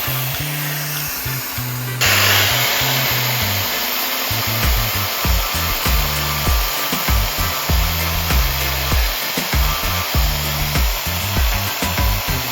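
Background music with a steady bass beat laid over the steady grinding noise of an angle grinder spinning a CD disc. The grinding gets suddenly louder about two seconds in.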